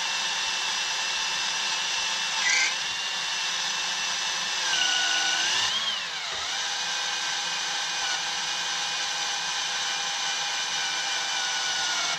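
Hand drill running continuously, a twist bit cutting into a hatch hinge to enlarge its holes, with a steady motor whine. The pitch sags and wobbles about five to six seconds in as the drill is loaded, and there is a brief louder screech earlier on. The bit is cutting slowly because it is worn.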